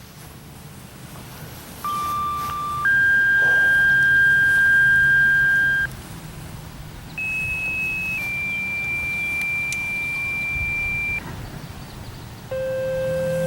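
Radio paging tones: pairs of steady electronic tones, each a short tone of about one second that steps straight to a different pitch held for about three seconds. Two full pairs sound, and a lower-pitched pair begins near the end. This is the pattern of two-tone sequential paging used to activate outdoor warning sirens.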